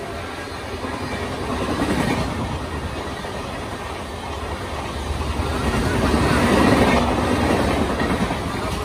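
Red-and-grey LHB passenger coaches of an express train rushing past at speed: a steady roar of wheels on rail. It swells about two seconds in and grows loudest around seven seconds in.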